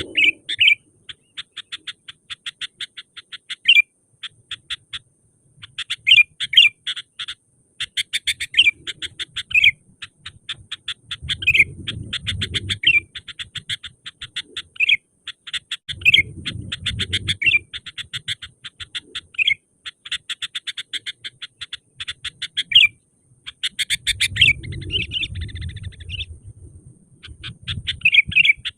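Sooty-headed bulbul (kutilang) calling energetically in rapid chattering trains of short notes, with louder sweeping notes breaking in, in bursts separated by short pauses. A low rumble sounds underneath three times.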